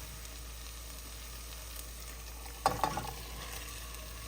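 Onions and tomatoes sizzling steadily in peanut oil in a hot pressure cooker, with a brief clatter a little under three seconds in.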